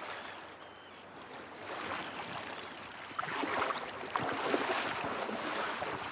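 Sea washing on a pebble shore, with footsteps crunching on the stones from about three seconds in.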